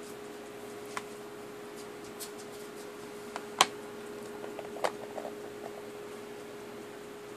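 Handling noise as a bone is moved about and set down on a laptop: a few light clicks and taps, the loudest a sharp tap about three and a half seconds in and another about a second later. Under it runs a steady faint hum and hiss.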